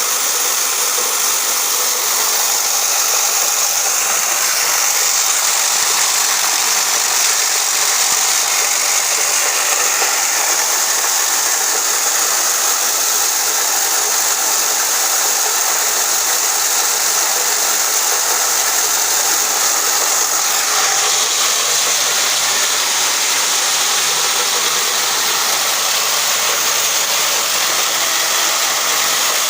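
Simple corn-grinding machine running steadily with a loud, dense whirring noise that sits mostly high in pitch, its tone shifting slightly about twenty seconds in.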